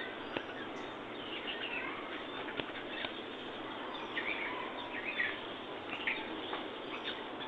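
Birds chirping in short, scattered calls over a steady background hiss.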